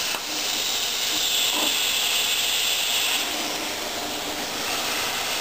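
Air plasma cutter's arc cutting thin aluminium sheet with a steady loud hiss; the hiss drops about three seconds in as the cut ends, leaving a softer air hiss.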